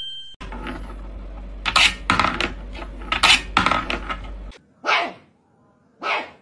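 A small ball rattling and clicking around the metal wire track of a wooden marble-run toy as kittens bat at it, over a low hum. Near the end a dog barks twice, about a second apart.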